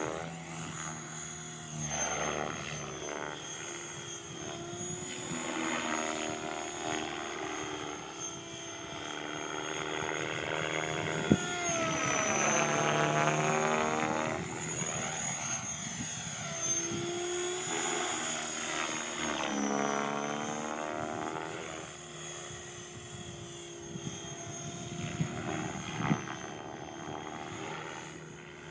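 Radio-controlled helicopter flying inverted hurricanes. Its rotor buzz and a steady high whine sweep up and down in pitch and loudness as it circles past, with the strongest swoops about halfway through and again a few seconds later.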